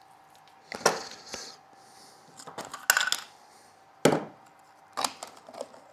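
Small hand tools and wire being handled on a workbench: four sharp clicks and clacks about a second apart, with a faint steady hum underneath.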